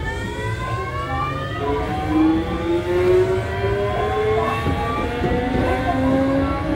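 Kintetsu 7000 series train's Mitsubishi GTO VVVF inverter and traction motors whining under acceleration. Several tones rise steadily in pitch, and a lower tone steps up partway through, over the steady rumble of wheels on rail.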